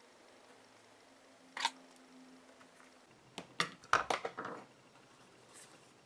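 Backing liner pulled off a strip of double-sided tape on a ribbon, one short sharp sound about one and a half seconds in, then cardstock being handled: a quick cluster of paper rustles and light taps a little past the middle.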